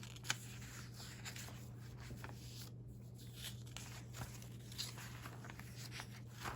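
Faint rustling and soft ticks of paper pages being handled and turned in a recipe binder, over a steady low hum.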